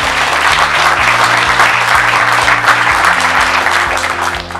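Audience applauding, with soft background music of held notes underneath; the applause dies away near the end.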